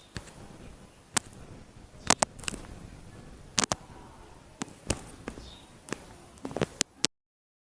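Scattered sharp clicks and taps, about a dozen at irregular intervals, some in quick pairs, over faint background hiss. The sound cuts off abruptly to dead silence about seven seconds in, as the recording ends.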